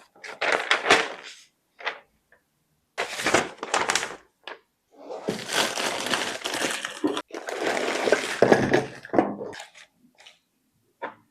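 Packaging and parts of a dual-monitor mount being unpacked and handled: crinkling, rustling and knocking in three bursts, a short one about half a second in, another around three seconds in, and a long stretch from about five to nine seconds, with a few small clicks between.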